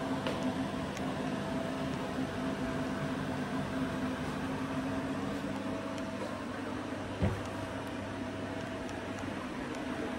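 Downdraft kitchen extractor fan running at a steady hum with a few fixed tones. A single short knock comes about seven seconds in.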